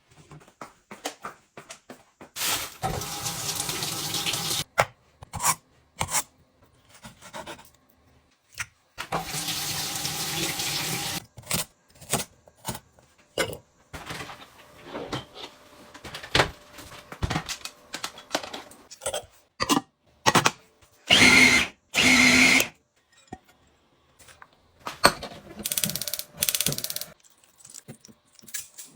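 Kitchen tap running in two stretches of about two seconds each, amid clinks and knocks of containers being handled; a short pitched sound in two parts near the end.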